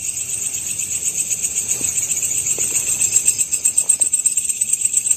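Night insects calling in a steady high-pitched chorus, with an even pulsing of about five or six beats a second that grows stronger about halfway through.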